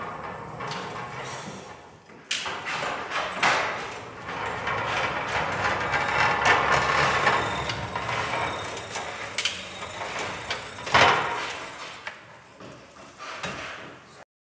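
Old BT electric pallet stacker being driven over a concrete floor: its drive and wheels run with a rattling of the mast and frame and irregular clunks, the loudest a sharp knock about eleven seconds in.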